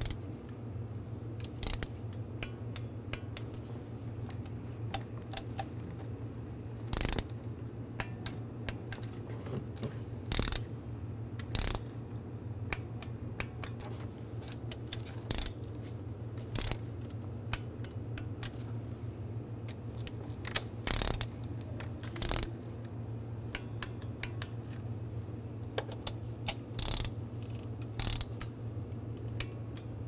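Hand tools on engine bolts being torqued to 80 inch-pounds: about a dozen sharp metallic clicks and short ratcheting bursts at uneven intervals, the clicks of a click-type torque wrench and ratchet as each bolt is brought to spec, over a faint steady low hum.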